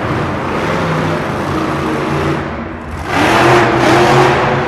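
Monster truck's supercharged V8 running hard, then revving up louder with a rise in pitch about three seconds in as the truck climbs and launches over a pile of crushed cars.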